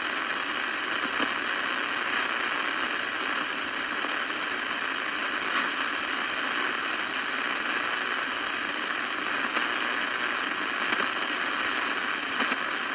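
Steady static hiss from a CB radio's speaker between transmissions, with a faint crackle now and then.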